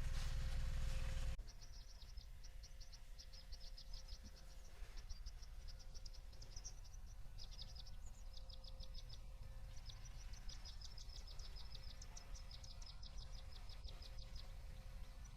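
Insects chirping in rapid trains of short, high pulses, the trains repeating with brief gaps. For about the first second and a half a louder rushing noise covers everything, then cuts off suddenly.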